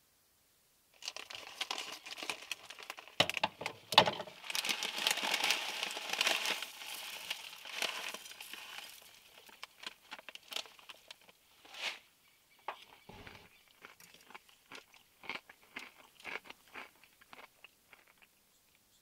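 Crinkling, crackling rustle of something crinkly being handled close by, starting about a second in, dense for several seconds, then thinning to scattered crackles and clicks.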